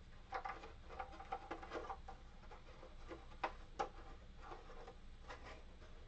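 Light clicks, taps and rattles of hard plastic parts on a Drinkmate soda maker being handled and worked at. A flurry of small clicks comes in the first two seconds, two sharper clicks come around three and a half seconds in, and a couple more come near the end.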